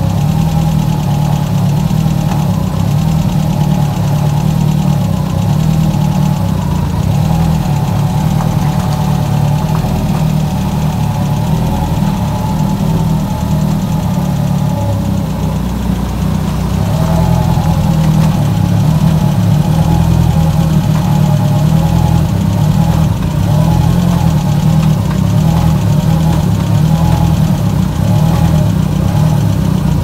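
Volkswagen Gol G2's four-cylinder CHT engine running at idle while reverse is engaged and the clutch let out. Its note shifts slightly a little past halfway. There is a faint judder, which the owner traces to a dented, loose heat shield over the exhaust tunnel vibrating.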